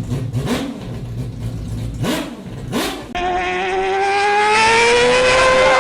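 Race car engine noise with a few quick rising sweeps. From about three seconds in, a high-pitched, clear engine note climbs steadily as the car accelerates, typical of the Mazda 787B's R26B four-rotor Wankel rotary engine at high revs.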